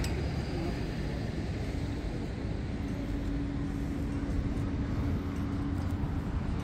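City street traffic: a steady rumble of vehicles, with a steady low hum setting in about two seconds in.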